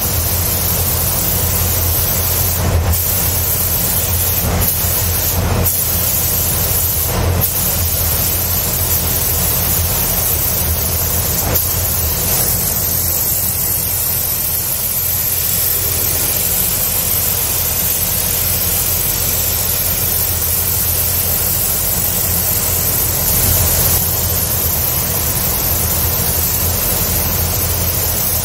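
Steady compressed-air hiss of a DeVilbiss gravity-feed spray gun with a 1.4 mm tip, laying zinc chromate primer, over the steady low hum of the paint booth's ventilation.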